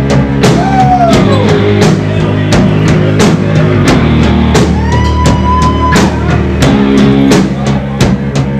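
Rock band playing live: distorted electric guitar over a drum kit beating steadily. A high note glides down about a second in, and another is held around five seconds in.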